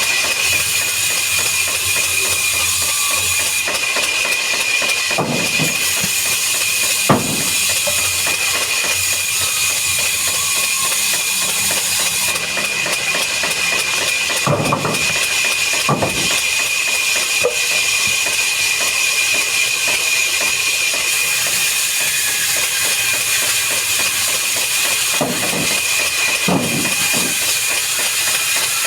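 Woodworking machinery running steadily, with a constant high whine over a hiss and a few sharp knocks scattered through.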